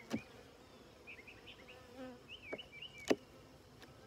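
Honeybees buzzing as a steady hum around an opened hive, broken by three sharp clicks of a metal hive tool against the wooden frames, the loudest about three seconds in. The buzzing is taken by the beekeeper as the bees warning him to put on his veil.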